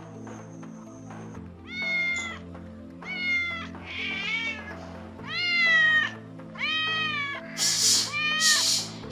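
Cats meowing repeatedly, about seven separate meows from about a second and a half in, the last few rougher and hissing, over steady background music.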